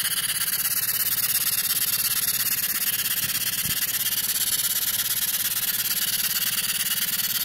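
Stuart 10V single-cylinder model steam engine running on compressed air: fast, even exhaust beats over a steady hiss of air. The engine is new and tight, being run in so that it spins more freely.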